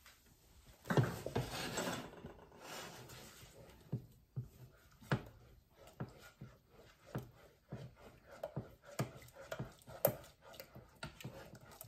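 A silicone spatula stirring mashed potatoes in a stovetop pot, knocking and scraping against the pot's side about once or twice a second. About a second in, a short, louder hiss as something is poured into the pot.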